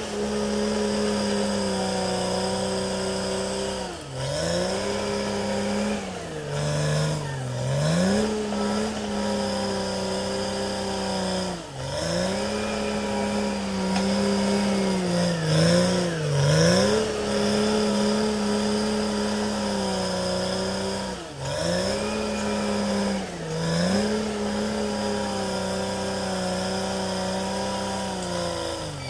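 Caterpillar D6R XL bulldozer's diesel engine running hard as the dozer pushes earth. Its pitch sags and recovers about seven times, over a steady high whine.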